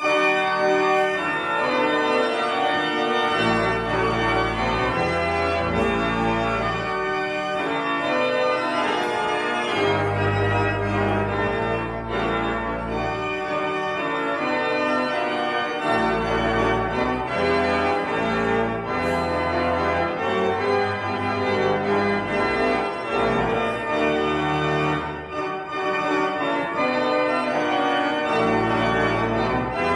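An organ playing a full, sustained piece of chords over deep bass notes that change every second or two.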